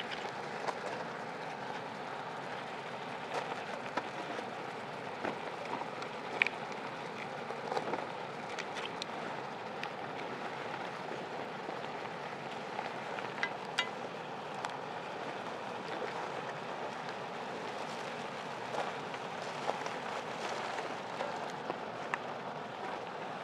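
Beef steak sizzling in a cast iron pan: a steady hiss with scattered pops and crackles.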